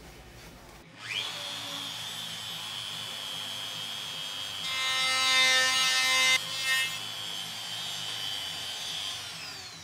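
DeWalt compact router starting up about a second in with a rising whine, then running steadily at a high pitch. For a couple of seconds in the middle it is louder and busier as the bit cuts into the pine frame, and it winds down near the end.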